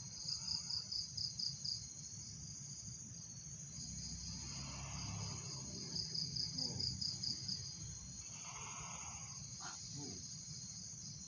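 Crickets chirping at night: a steady high trill with runs of rapid, even chirps, about four or five a second, that come and go.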